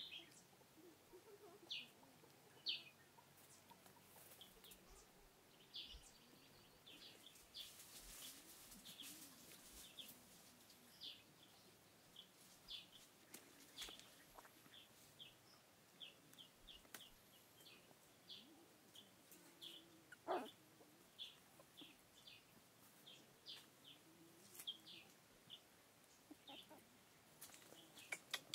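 Faint, scattered short high chirps of birds, with one louder call sliding down in pitch about twenty seconds in.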